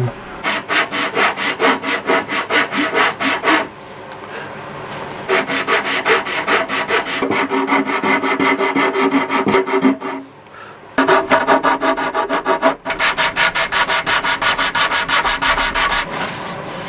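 Hand rasp scraping across a hardwood board edge in quick back-and-forth strokes, about three a second, rounding a square corner to a radius. The strokes stop briefly twice, about four seconds in and about ten seconds in.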